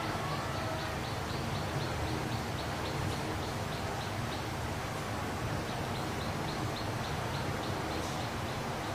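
Two runs of short, high, evenly spaced chirps, about three or four a second, from a small animal, with a break between them, over a steady low background hum.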